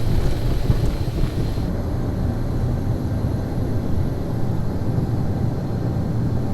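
Private jet's engines at takeoff thrust, heard from inside the cabin during the takeoff run: a steady, loud low rumble with a rushing hiss. The hiss drops away about two seconds in.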